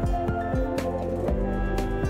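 Calm instrumental background music with sustained notes and a soft beat about twice a second.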